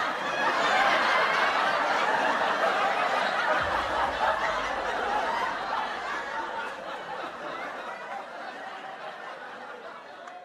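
Crowd hubbub echoing in a large exhibition hall: many voices talking and laughing at once, with no single clear speaker, fading out gradually over the last few seconds.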